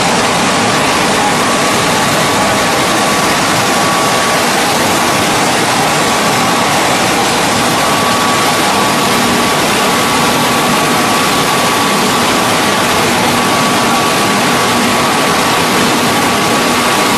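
Hydraulic spindle veneer lathe running as it peels a log into a continuous sheet of face veneer: a loud, steady machine noise with a constant high whine, and a lower hum that comes and goes from about halfway through.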